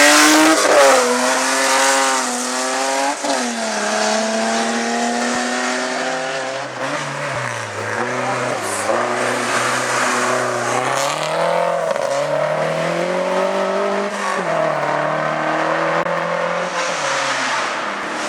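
Race car engine running hard, its revs climbing quickly through several upshifts in the first few seconds. The pitch then drops and rises again several times as the car slows and pulls away through the bends.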